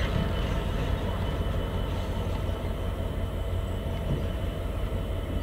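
Class 66 diesel-electric locomotive's two-stroke EMD V12 engine running with a steady low rumble as the locomotive moves slowly on its own.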